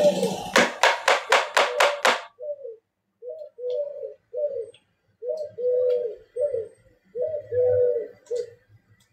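A quick, even run of about seven sharp knocks, then repeated low cooing bird calls in short phrases.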